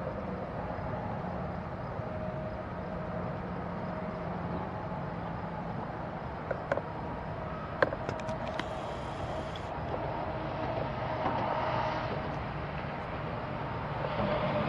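Parked NYSW diesel locomotive idling with a steady low hum. A few short clicks come about seven to eight seconds in, followed by a brief high hiss.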